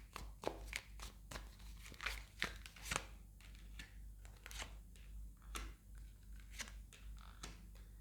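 A tarot deck being shuffled by hand: soft, irregular card snaps and slaps, a few a second.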